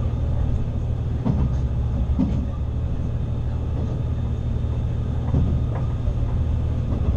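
Diesel railcar running along the line: a steady low engine hum and wheel-on-rail running noise, with a few light knocks from the track, about a second, two seconds and five seconds in.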